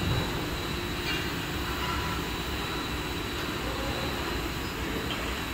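A 10-tonne electric overhead travelling crane running, a steady mechanical rumble.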